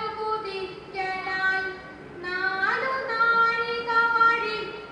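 A young woman singing a Malayalam verse (shloka) into a microphone, with no accompaniment, as in aksharashloka recitation: a slow melodic chant of long held notes, with an upward swoop in pitch about two and a half seconds in.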